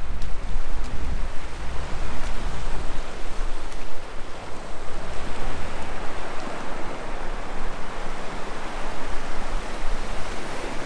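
Waves breaking and washing over a rock platform, a steady rushing surf noise, with a low rumble over the first four seconds.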